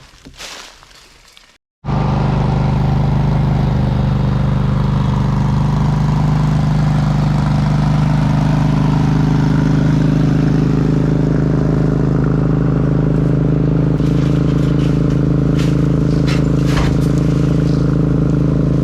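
Heavy machinery's diesel engine running steadily at constant speed, loud and close. It starts abruptly about two seconds in, after a short stretch of quieter scuffing.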